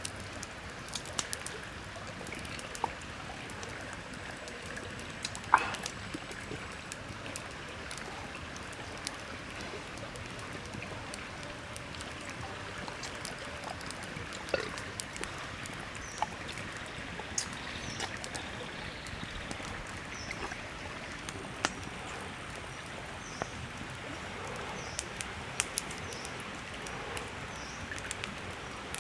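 Steady rush of flowing water, with scattered light clicks and taps from food being handled on a wooden board; one sharper click about five and a half seconds in.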